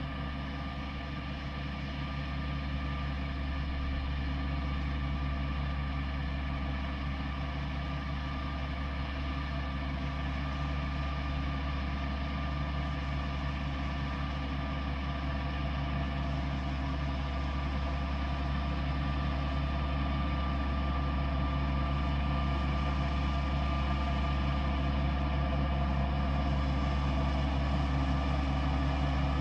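Kubota Bulltra B1-14 compact diesel tractor running steadily while its flail mower cuts tall grass, growing gradually louder as it approaches.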